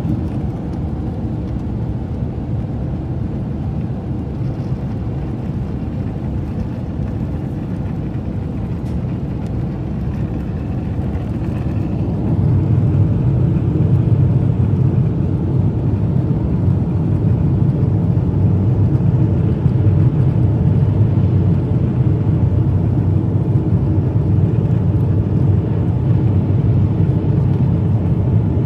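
Steady, deep cabin noise of a jet airliner in flight: engine and airflow noise heard inside the cabin at a window seat. It gets louder about twelve seconds in and holds there.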